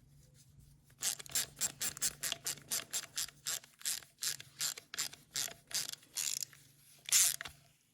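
Hand socket ratchet clicking in a quick, even run of about four clicks a second, starting about a second in, as screws on a lawnmower carburetor are tightened down.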